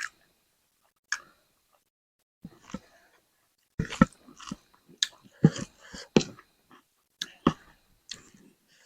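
Close-up chewing and biting while eating spicy chicken: irregular mouth clicks and smacks, sparse at first and coming more often from about four seconds in.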